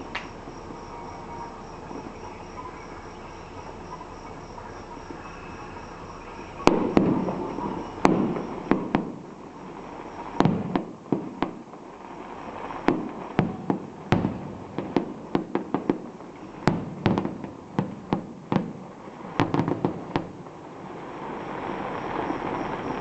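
Fireworks going off: a run of sharp, irregularly spaced bangs begins about seven seconds in and lasts about fourteen seconds. Crickets chirp steadily underneath, and they are plain before the bangs start.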